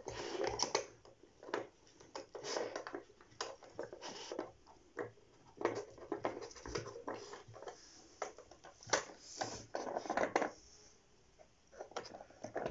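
A puppy nosing and pawing at a plastic puzzle feeder, its pieces giving irregular clicks, knocks and scrapes against the plastic base, with short rustling in between.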